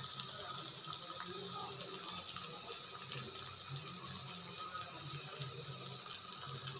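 Urad dal fritters deep-frying in oil in a karahi over low heat, sizzling steadily: a continuous hiss with fine crackles.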